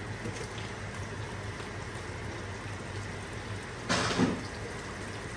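Minced chicken frying in hot oil in a pan, a steady sizzling hiss over the low hum of a kitchen exhaust fan, with a brief louder burst of noise about four seconds in.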